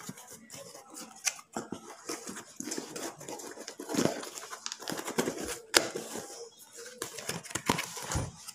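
Cardboard shipping box being handled and pulled open: irregular rustling, scraping and crinkling of cardboard and packing tape, with scattered clicks and one sharper snap a little after the middle.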